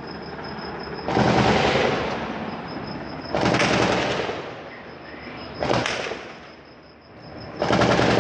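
Bursts of automatic gunfire, four in all: one about a second in, one at about three and a half seconds, a short one near six seconds, and another starting near the end, each fading away after the shooting stops.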